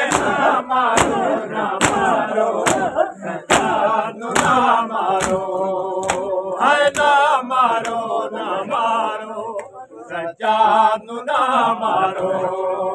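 A group of men chanting a noha (mourning lament) in chorus. For the first five seconds it is punctuated by sharp, regular chest-beating slaps (matam) about once a second; after that the voices carry on without the slaps.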